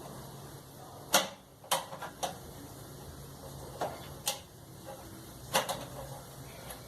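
Sharp clicks and light knocks, about seven, spaced irregularly, from tools and small parts being handled while working on a clothes dryer.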